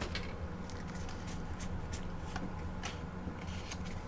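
Pokémon trading cards from a freshly opened booster pack being handled and slid against each other, making scattered light clicks and rustles over a steady low hum.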